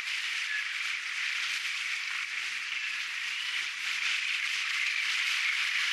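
Steady rushing hiss of wind, with a faint high whistle running through it.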